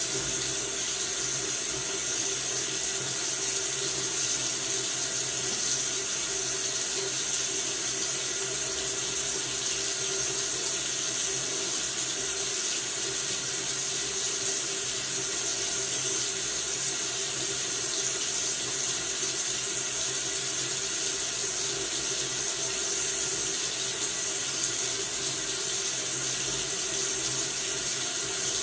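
Tap water running steadily from a faucet into a sink, an even splashing hiss that does not change.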